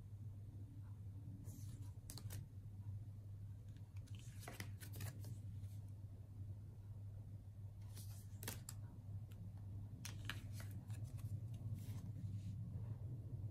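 Oracle cards being handled: short sliding, flicking and snapping sounds as cards are drawn off the piles and moved to the front, coming in a handful of brief clusters, busiest near the end. A steady low hum runs underneath.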